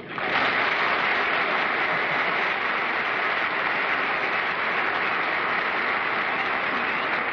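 Studio audience applauding, starting abruptly and holding steady.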